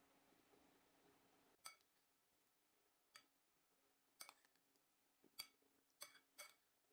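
Metal utensil clinking against the side of a bowl while stirring a grated cabbage and egg mixture: a series of sharp, irregular clinks with a short ring, starting about a second and a half in.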